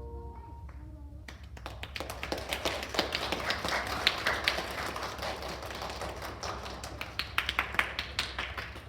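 The last tone chime note rings out and fades, then a small audience claps: dense, irregular applause starting about a second in.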